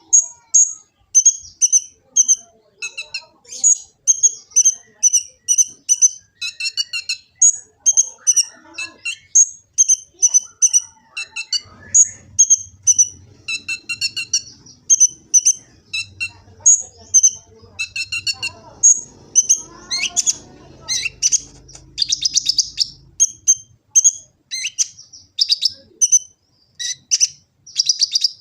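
Kolibri ninja sunbird singing: short, high chirps repeated about twice a second, breaking into a denser, rapid twitter about two-thirds of the way through.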